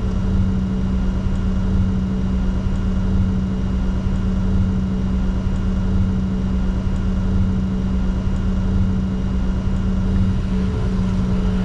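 Cockpit noise of a Bombardier Challenger 604 jet taxiing on its idling engines: a steady low rumble with a constant hum.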